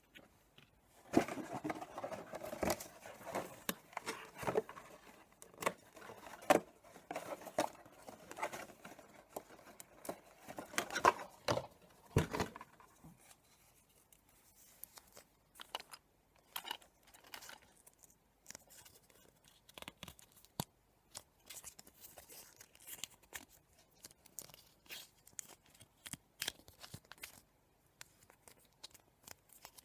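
Irregular clicks, taps and rustling of objects being handled, busy and louder for about the first twelve seconds, then sparser and quieter.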